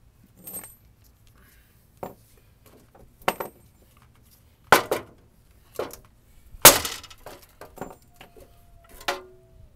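Irregular knocks and clanks as the steel bumper of a 1987 GMC Jimmy and a wooden board laid on it are shifted and set down. The loudest knock comes about two-thirds of the way through, and a short metallic ring follows near the end.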